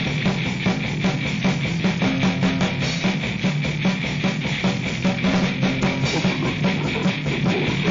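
Grindcore noise recording: heavily distorted guitar and bass droning under fast, dense drum hits.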